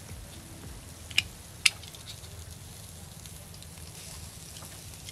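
Pork chops sizzling on a wire grill over a wood fire, with the fire crackling. Two sharp clicks about a second in, half a second apart.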